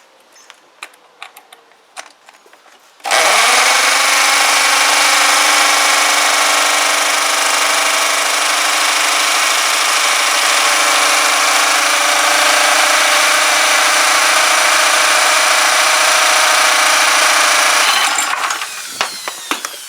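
Electric drill spinning the pressure washer's small petrol engine over through an adapter. It starts about 3 s in, runs steadily for about fifteen seconds and stops near the end, with a few light clicks before it starts. The engine is turning over without catching and running.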